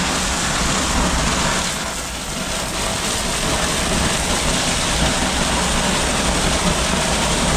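Gunite (dry-mix shotcrete) nozzle spraying concrete onto a stone wall: a loud, steady rush of compressed air and material, with a brief dip about two seconds in.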